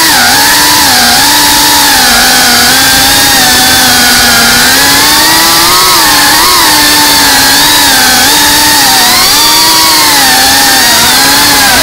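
GEPRC CineLog 35 cinewhoop's brushless motors and ducted 3.5-inch propellers buzzing loudly, the pitch wavering up and down with the throttle as it flies, heard from its onboard camera.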